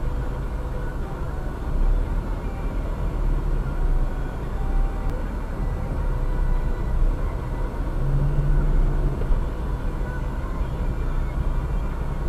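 Steady low rumble of passing vehicles at a railway level crossing, with a brief low hum about eight seconds in.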